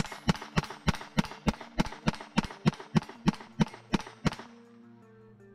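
Taurus TX22 .22 LR semi-auto pistol firing a rapid string of about fifteen shots, roughly three a second, running without a stoppage. The firing stops a little over four seconds in.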